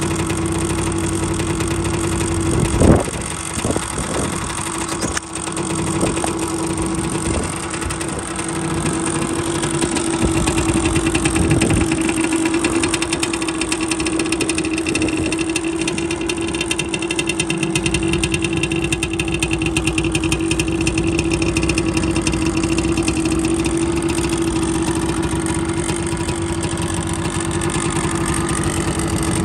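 1986 Yamaha Tri-Z 250's two-stroke single-cylinder engine idling steadily, with a few short blips of sound between about three and seven seconds in.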